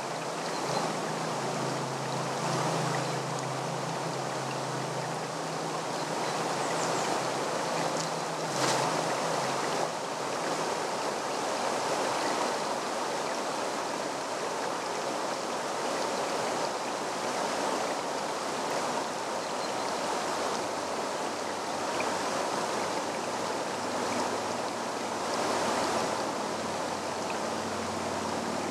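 Shallow mountain stream running over stones: a steady rushing babble of water. A brief click stands out about nine seconds in.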